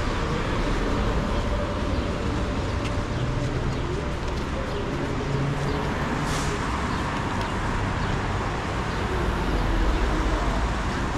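City street ambience: steady traffic noise from cars on a rain-wet road, with a short hiss about six seconds in and a vehicle passing louder near the end.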